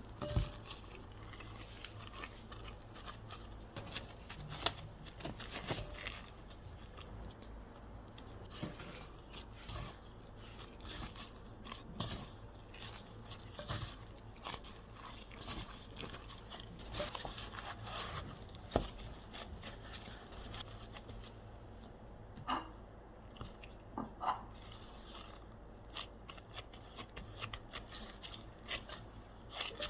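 Irregular small clicks, taps and rustles of hands working in a kitchen, handling utensils, bowl and packaging, over a low steady hum.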